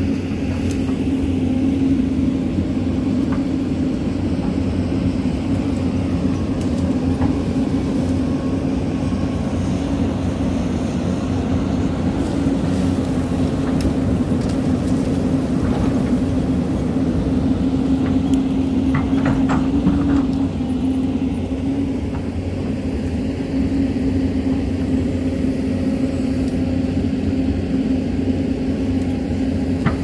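Hyundai Robex crawler excavator's diesel engine running steadily under digging load, a constant drone, as the bucket cuts and scrapes soil on a hillside. A few brief knocks of bucket and earth come about halfway through.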